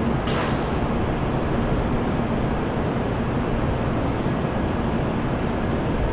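N700-series Shinkansen train moving along the platform, a steady wash of running noise with a low hum, and a short hiss about half a second in.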